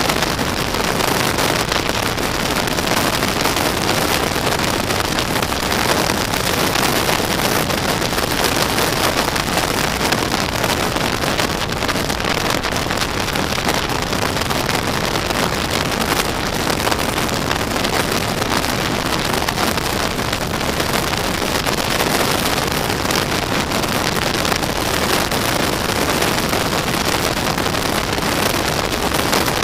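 Steady rush of wind on the microphone with road and engine noise from a SYM scooter cruising at motorway speed.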